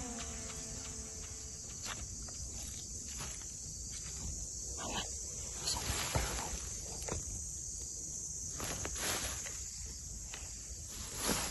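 A steady, high-pitched insect chorus, with leaves and stems rustling and footsteps as someone pushes through dense undergrowth. A few louder brushes of vegetation stand out.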